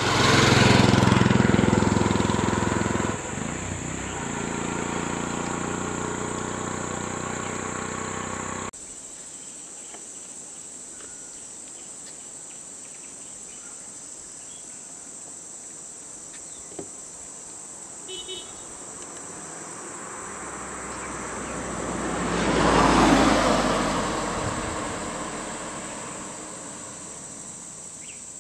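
A motor vehicle's engine running close by for the first several seconds, cut off abruptly, then a steady high chirring of insects. Later a vehicle passes by, rising and fading away.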